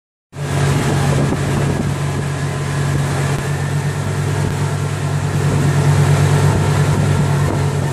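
Water taxi's engine running steadily underway, a low even drone heard from on board, with a steady hiss of water and wind over it.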